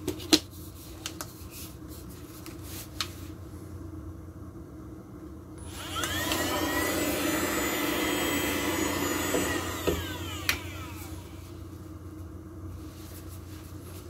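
xPower VC7 2-in-1 cordless mini vacuum cleaner's motor starting with a rising whine about six seconds in. It runs for about four seconds, then winds down and stops, which the owner takes as a sign the vacuum is broken. A few handling clicks come before it.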